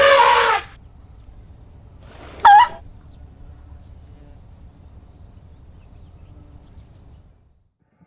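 Elephant trumpeting: a loud blast about half a second long at the start, then a second, shorter and higher-pitched call about two and a half seconds in, over a steady low background noise that cuts out shortly before the end.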